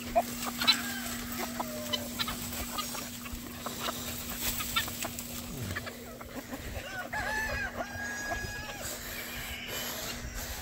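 A free-ranging flock of chickens clucking and calling in short scattered bursts, with a rooster crowing about seven seconds in.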